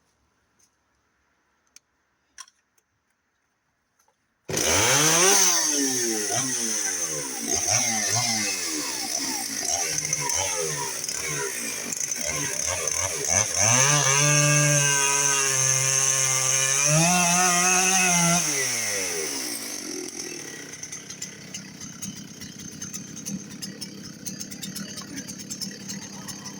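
Dolmar 6400 two-stroke chainsaw, cutting in suddenly about four and a half seconds in, already revving up and down. It then holds a lower, steady pitch for about four seconds as it bogs under load in the cut, revs up again and drops back to a rattly idle about twenty seconds in.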